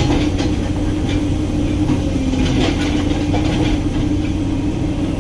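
Excavator engine running steadily: a continuous low drone with a steady hum and light rattling clicks.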